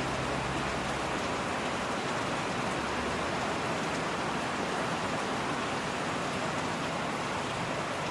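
Steady rain falling, an even hiss, with a faint low hum underneath.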